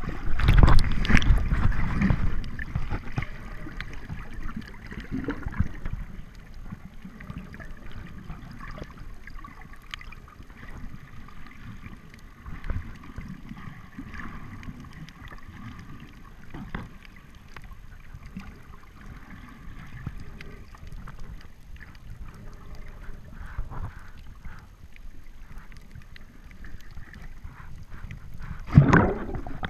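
Muffled underwater water noise recorded just below the surface: steady sloshing and gurgling with scattered faint clicks, and a loud low rush of moving water in the first two seconds and again near the end.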